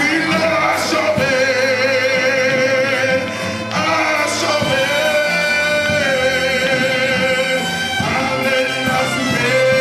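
A man sings a worship song into a microphone over instrumental accompaniment, holding long notes with vibrato.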